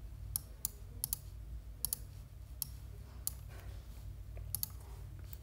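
Sparse, light, sharp clicks, about ten of them at uneven intervals, over a faint steady low hum.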